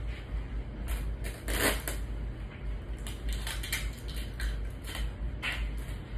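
Rustling and crinkling handling noises in irregular bursts, the loudest about a second and a half in, over a steady low hum.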